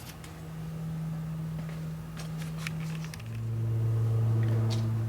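Power drill running steadily. A little past three seconds in its pitch drops and it gets louder as the bit loads up, drilling out a rivet on the window hardware.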